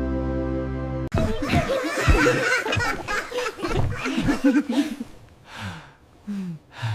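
Steady background music that cuts off abruptly about a second in, followed by hearty laughter that tapers into a few short chuckles near the end.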